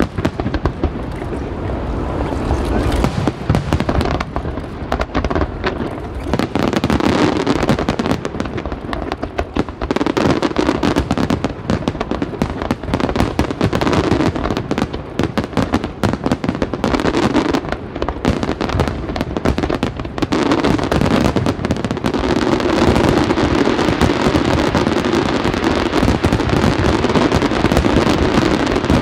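Fireworks display going off: many bangs and crackles in quick, almost continuous succession.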